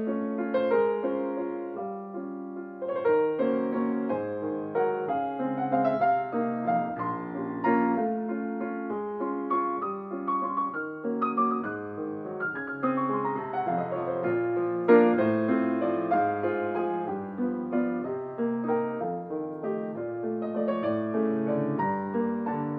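Solo acoustic grand piano playing an instrumental piece, with a falling run of notes about thirteen seconds in.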